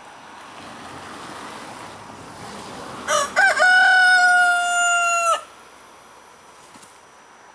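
Rooster crowing once, starting about three seconds in: a few short broken notes, then one long, steady note held for about two seconds that cuts off sharply.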